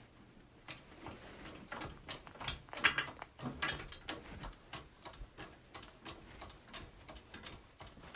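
Motorcycle jack being worked to lift the bike: a run of uneven mechanical clicks and knocks, like a ratchet or latch catching, loudest and busiest about three seconds in.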